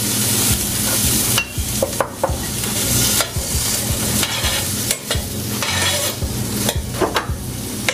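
Sliced onions sizzling in melted butter in a stainless steel pan, stirred with a spoon that scrapes and clicks against the pan.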